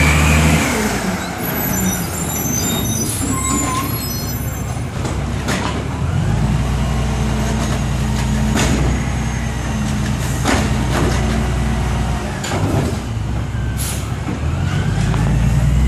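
Automated side-loader garbage truck's diesel engine running as the truck passes close by and then works at the curb. The engine rises and holds at higher revs from about six seconds in, with sharp clanks and air-brake hisses scattered through.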